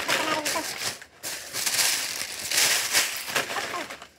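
Packaging crinkling and rustling as it is handled, in irregular bursts that are loudest about two to three seconds in.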